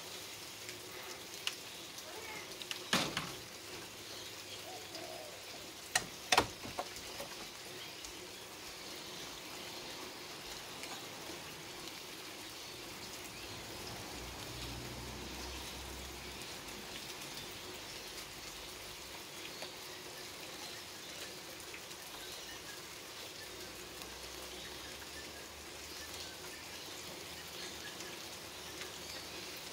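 Rain falling steadily, an even patter of drops on leaves and grass. A few sharp clicks stand out about three seconds in and again around six seconds in.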